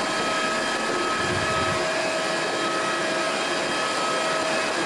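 Steady jet-turbine whine over a rushing noise from aircraft on the airport apron: several high, unchanging whine tones that hold level throughout.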